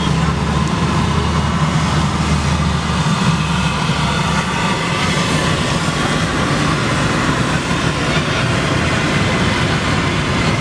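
Oil sizzling steadily around chips deep-frying in a wire basket, over a continuous din of street traffic. A low hum underneath drops away about three seconds in.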